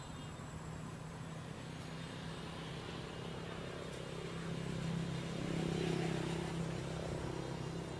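Low steady hum of a motor vehicle engine running. It swells louder about halfway through and eases off again near the end.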